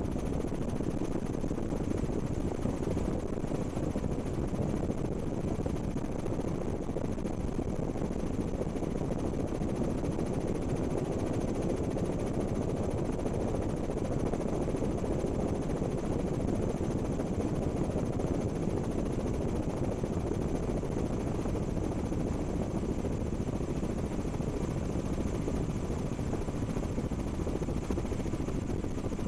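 Steady helicopter noise, its rotor and engine heard as a dense, unbroken low rush with a faint high whine on top.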